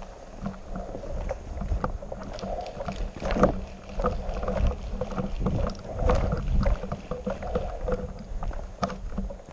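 Wind buffeting the microphone as a low rumble, with scattered sharp knocks and rustle from a player moving with rifle and gear.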